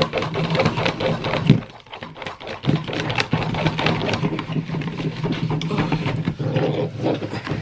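Homemade slime being stirred hard in a bowl, thickening as contact solution is worked in: many quick, irregular sticky clicks, over a low steady hum.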